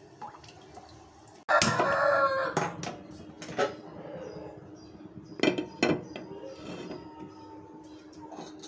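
Kitchen utensils and a pan knocking and clinking on a gas stove, several sharp knocks. About a second and a half in comes a loud, pitched animal call lasting over a second.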